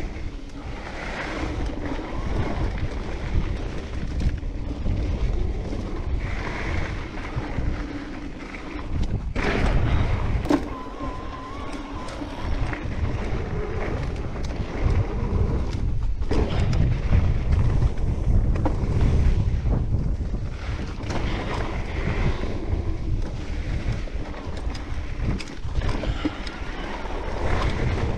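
Mountain bike descending a rough forest trail: wind buffets the camera microphone over the rumble of tyres on dirt and roots, with knocks and rattles from the bike over bumps and a brief squeal partway through.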